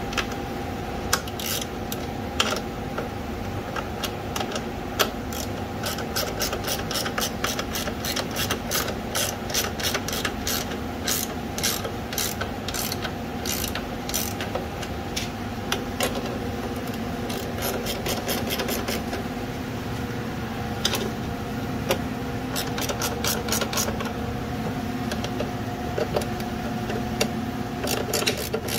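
Small ratcheting wrench clicking in quick runs as it is worked back and forth on a bolt, over a steady background hum.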